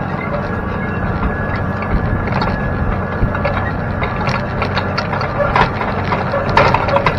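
Steel shanks of a tillage implement dragging through soil, with a constant gritty crackle and clatter of clods and stones against the metal that thickens near the end. The steady drone of the tractor pulling it runs underneath.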